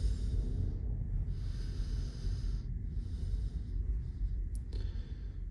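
A person breathing close to the microphone: four slow breaths of about a second each with short gaps between them, over a steady low rumble. There is a small click near the end.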